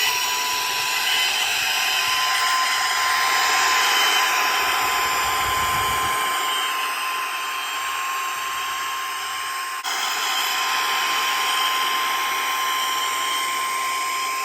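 Saker 3-in-1 mini handheld cordless vacuum running as a blower with its small nozzle: a steady high motor whine over rushing air, blowing dust out of a groove. The sound dips briefly about ten seconds in.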